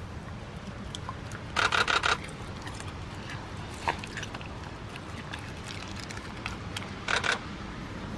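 Dog chewing and gnawing a chunk of raw wild boar meat: two short bursts of wet, crackly chewing, one about a second and a half in and one near the end, with faint clicks of the jaws between, over a steady low background rumble.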